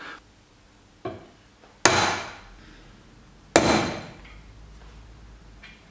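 Hammer blows on a steel punch held against a Vespa rear shock absorber clamped in a vise: a light tap about a second in, then two hard, ringing metal strikes about a second and a half apart.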